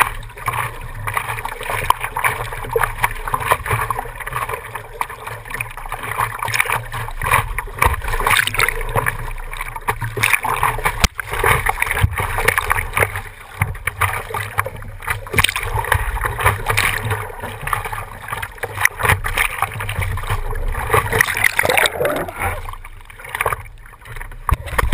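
Seawater sloshing and splashing over the nose of a surfboard as a surfer paddles prone, with irregular splashes from her strokes, heard through a GoPro in its waterproof housing at water level. It eases off near the end as the paddling stops.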